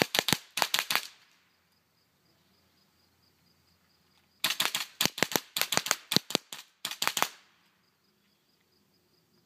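GHK gas blowback airsoft M4 rifle firing sharp cracks. There are a few quick shots at the start, then after a pause of about three seconds a rapid string of a dozen or more shots lasting about three seconds.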